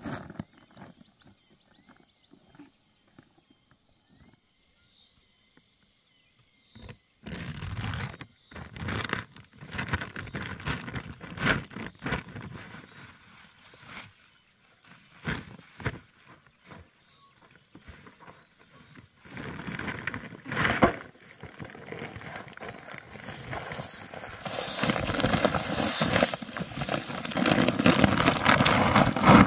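Granular fertilizer poured from a plastic-wrapped sack into a metal basin, a dense rattling hiss over the last five seconds or so, after bouts of sack rustling and handling. Faint bird chirps in the first few seconds.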